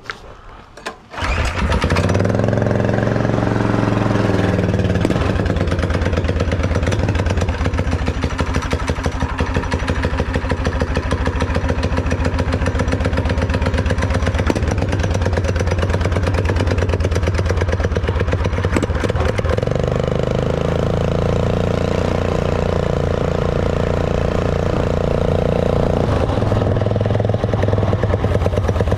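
A 212 cc single-cylinder four-stroke engine on a motorized bicycle starts about a second in and then runs steadily under way, its pitch shifting a little with the throttle.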